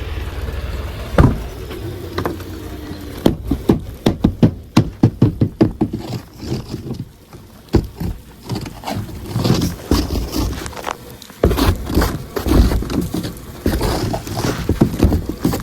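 Snow being knocked and scraped off a semi truck: a single sharp knock about a second in, then a fast run of knocks from about three to six seconds in, followed by scattered scrapes and knocks.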